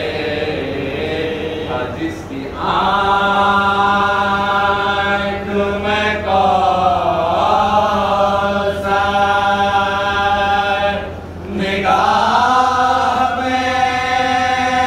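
A man's voice chanting a ziyarat, the Shia devotional salutation, in long drawn-out melodic phrases that glide up and down. He pauses for breath about two seconds in and again about three-quarters of the way through.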